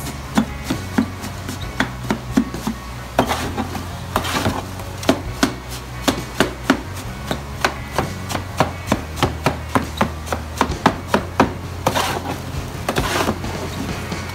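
Metal krill-chopper blade repeatedly chopping into a block of frozen krill against a plastic bait tub, quick sharp chops a few times a second. Scraping as the blade scoops and turns the crushed krill about four seconds in and again near the end.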